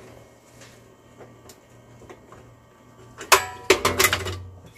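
A burst of sharp clicks and rattling clatter about three seconds in, as a stock Intel CPU cooler is worked loose and pulled off the motherboard. One of the cooler's retention clips is broken, so it sits loosely and the CPU overheats.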